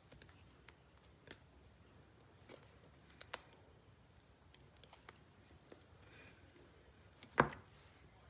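Serving spoon scooping creamy fruit salad from a bowl into a glass dish: faint scattered clicks and taps, with one louder knock about seven seconds in.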